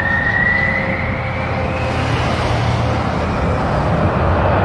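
Fighter-jet engine sound: a steady rushing roar with a high whine that slowly rises in pitch.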